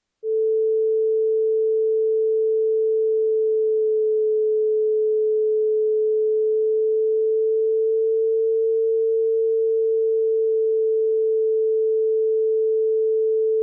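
A loud, steady, pure electronic tone at A4, about 440 Hz, with no overtones, starting just after the beginning. A few seconds in its pitch sags about 30 cents flat, then comes back up to in tune.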